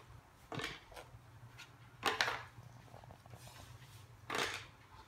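Faint handling sounds of picture cards and small objects being rummaged in a plastic tray on a wooden floor: three short soft swishes, about half a second, two seconds and four and a half seconds in.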